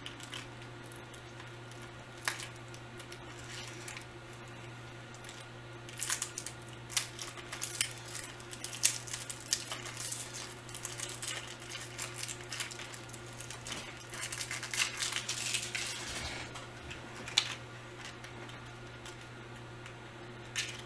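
Candy packaging crinkling and rustling as it is handled and opened, most busily in the middle stretch, over a steady low hum.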